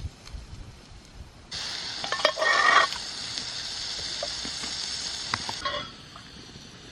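Food sizzling in a frying pan, starting and stopping abruptly, with a louder burst of crackling and a few clicks about two seconds in.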